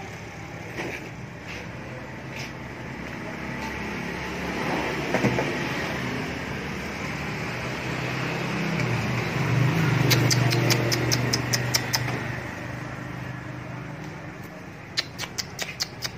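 Steady traffic noise with a motor vehicle passing, its low engine hum swelling and fading in the middle. Over it come two quick runs of sharp clicks, about six a second: the first about ten seconds in, the second near the end.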